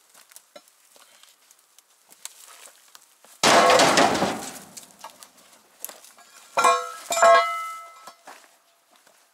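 Pieces of scrap iron crashing and clanging: one loud crash about three and a half seconds in, then, a few seconds later, two ringing metal clangs about half a second apart.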